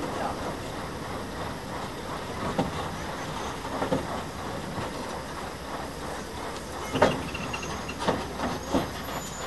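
Train running: a steady rail rumble with a few sharp clacks, the loudest about seven seconds in.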